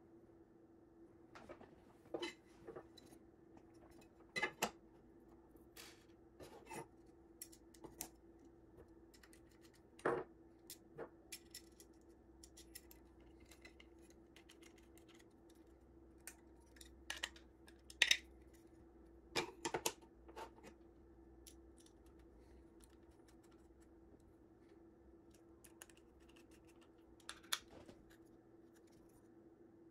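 Scattered light clicks and knocks of small robot parts being handled and set down on a wooden desk: 3D-printed TPU pieces, an aluminium plate and a hex screwdriver driving screws into it. A faint steady hum runs underneath.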